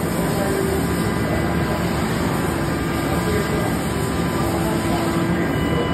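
Mori Seiki NMV-3000 five-axis vertical machining center running a cutting cycle, with its spindle turning and flood coolant spraying onto the workpiece: a steady, even machine noise with a low hum in it.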